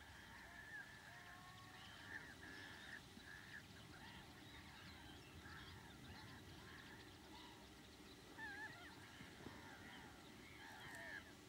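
Faint chorus of many distant birds calling over one another, short honk-like calls overlapping without pause. One louder wavering call stands out about two thirds of the way in, and another near the end.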